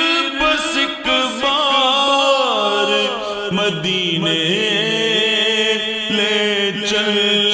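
Naat being sung: a voice holding long notes and gliding slowly between them in a drawn-out, wordless melodic line, with a steady hum sustained beneath it.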